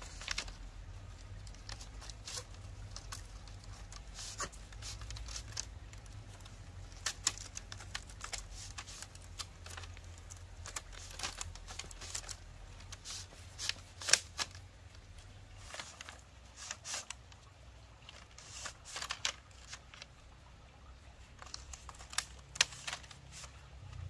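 Irregular rustling, scraping and sharp snapping of material being worked by hand, over a steady low rumble; the sharpest snaps come about halfway through and again near the end.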